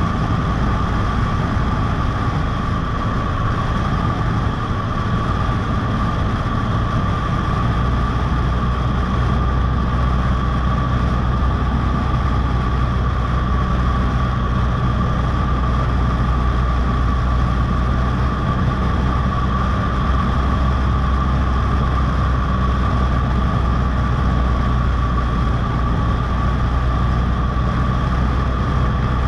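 Cessna 152's Lycoming O-235 four-cylinder engine and propeller running steadily, a continuous drone with a constant higher tone over it. The deep part of the drone grows a little stronger about a quarter of the way in.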